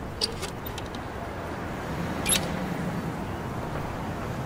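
Steady background noise, with a couple of faint clicks near the start and one short, sharp hiss a little over two seconds in.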